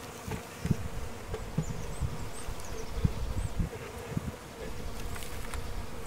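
Honeybees buzzing as they fly around an open hive, a steady hum, with a few soft low knocks.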